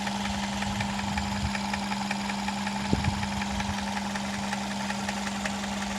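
Toyota Corolla 1.4 4ZZ-FE four-cylinder engine running steadily at what sounds like idle, with a fast, even ticking noise over the hum. The ticking is the fault noise that appears once the engine is warm. A brief louder knock comes about halfway through.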